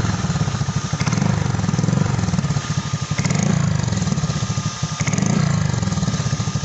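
Honda Click 150i scooter's single-cylinder engine running through a Kawahara aftermarket racing exhaust, at a low, rapidly pulsing idle that swells and eases about every second and a half.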